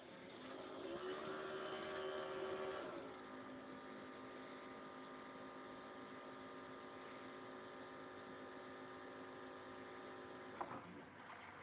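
Coffee maker's motor or pump humming with a steady multi-tone drone, louder for the first three seconds and then settling, with a click near the end.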